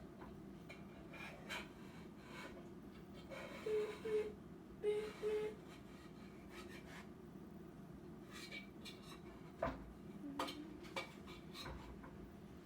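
Quiet handling of a cake pan and kitchen utensils: light scrapes and small clicks over a low steady hum, with a sharper knock about ten seconds in. Four short pitched notes in two pairs sound about four to five seconds in.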